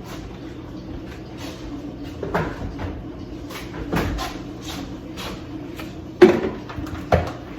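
Four separate kitchen knocks and bumps, like a cupboard or door being shut and things being set down, the loudest about six seconds in, over a steady low hum.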